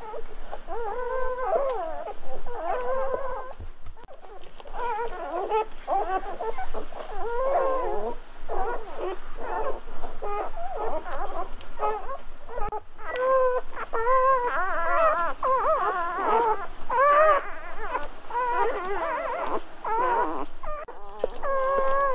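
Newborn golden retriever puppies whimpering and squeaking, a steady run of short high-pitched cries, several overlapping at once.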